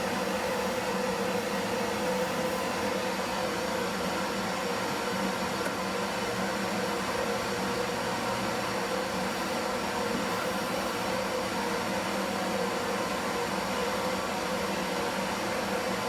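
Gas soldering torch burning with a steady, even hiss, heating the gas tank's steel to flow solder over a patched seam.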